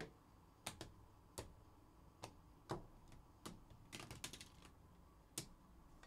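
Faint computer-keyboard typing: scattered single key clicks at an uneven pace, with a quick run of several keystrokes about two-thirds of the way through.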